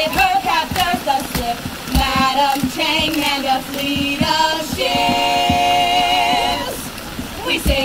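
Three women singing unaccompanied in harmony, phrase after phrase, then holding one long chord from about five seconds in until it breaks off near seven seconds.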